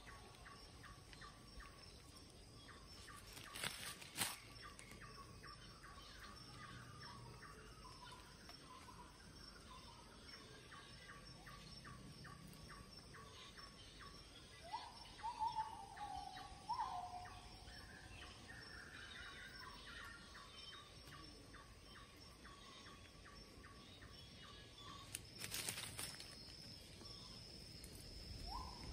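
Quiet outdoor ambience with birds calling: a long run of short notes repeated at an even pace, and a few louder gliding calls around the middle and near the end. Two brief knocks stand out, one a few seconds in and one near the end.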